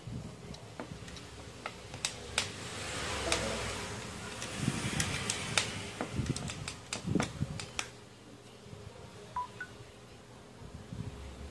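Plastic clicks, taps and handling knocks as a DJI Mavic remote controller and its plugged-in cable are fiddled with, with a few seconds of soft hiss partway through. A short, faint two-note beep comes near the end.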